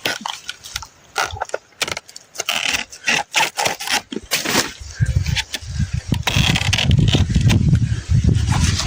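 Quick crackling, scraping clicks and rustles, then from about five seconds in a loud, low rumbling buffet on the microphone.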